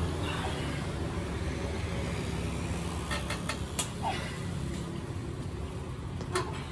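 Road traffic: a vehicle engine running with a steady low hum, with a quick run of sharp clicks about halfway through and one more near the end.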